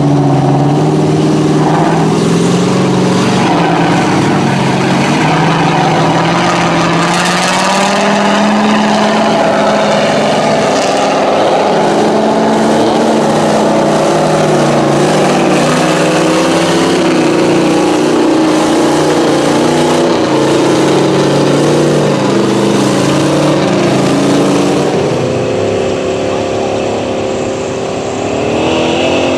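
Lifted mud truck's engine running loudly under load as it drives through a mud pit, its pitch drifting with the throttle. It eases off a few seconds before the end, then revs up again with a rising pitch.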